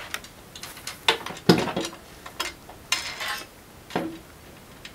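A stiffening bar is fitted into the extruded metal profiles of a projection-screen frame and its end screws are turned by hand, making metal-on-metal clinks and clatters. Five or six separate clicks come at irregular intervals, the loudest about a second and a half in.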